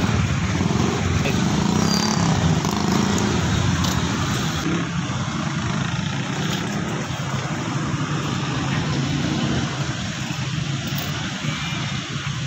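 Steady street traffic noise with a constant low hum underneath.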